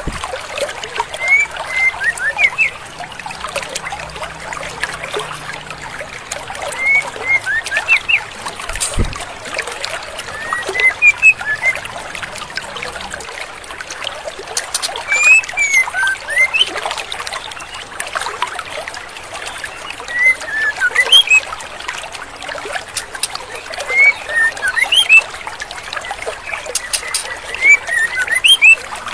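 Female white-rumped shama giving short bursts of three to five quick whistled notes every few seconds, over the steady rush of a stream.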